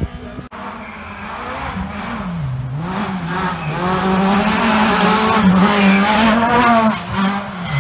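Rally car engine revving hard as the car approaches on a gravel stage, its pitch dipping at a gear change or lift a little over two seconds in, then climbing as it gets louder, loudest in the last third, easing briefly near the end.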